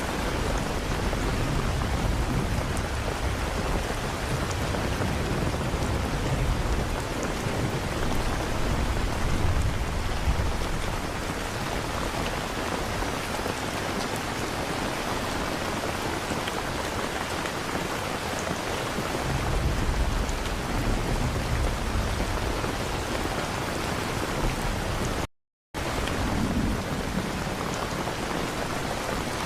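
Steady heavy rain with low rolling thunder, which swells during the first third and again about two-thirds in. Near the end the sound cuts out completely for a split second.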